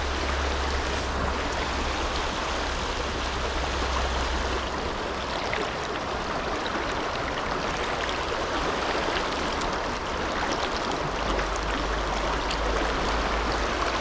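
Mountain stream rushing over rocks in a choppy riffle, a steady, even water noise. A low rumble sits beneath it at the start and again for the last few seconds.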